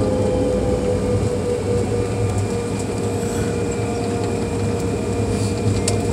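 Jet airliner cabin noise while taxiing after landing: a steady low rumble from the engines and rolling gear, with a steady engine whine over it. A few light clicks sound near the end.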